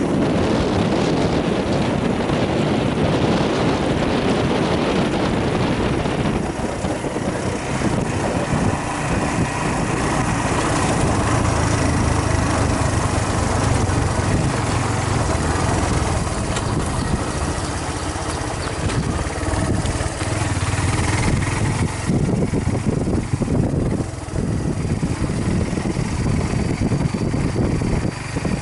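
Motorbike engine running steadily as the bike rides along, heard from on board. A rushing noise of wind on the microphone covers it for the first six seconds or so.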